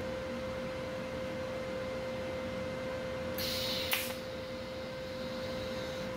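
A TIG welding arc struck once to tack two exhaust pipe sections together, a little pop: about half a second of high hissing buzz a little over three seconds in, ending in a sharp click, over a steady hum.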